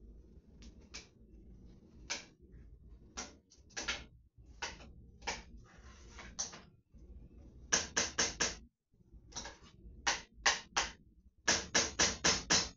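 Sharp knocks and clacks of kitchen work, some single and some in quick runs of four to six at about five a second, over a low hum.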